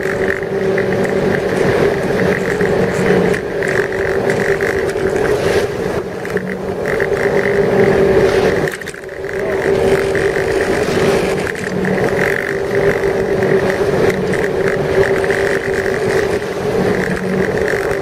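Ski boat engine running at a steady speed under a haze of rushing noise, its note dipping briefly about nine seconds in.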